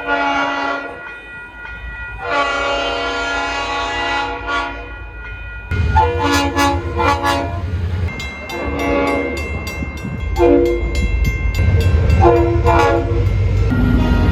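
Train horns sounding multi-note chords: a short blast, a long blast of about three seconds, then a string of shorter blasts, over the rumble of a passing train.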